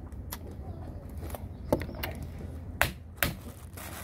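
Eating sounds: a handful of short, sharp clicks and smacks from the mouth and hands. The loudest come a little before the halfway point and twice in the last second and a half.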